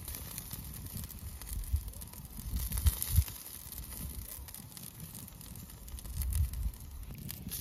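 Lamb chops sizzling in a wire grill basket over a wood campfire, with a steady fine hiss and faint scattered crackles from the coals. Low rumbles come and go, loudest about three seconds in and again around six seconds.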